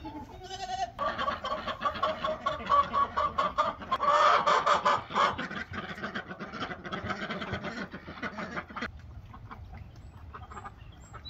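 Chickens clucking and cackling in a fast, continuous run, loud for most of the stretch, then dropping away a couple of seconds before the end.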